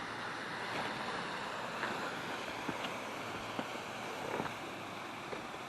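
Steady rush of a partly frozen waterfall, its water running under the ice, with a few faint clicks scattered through it.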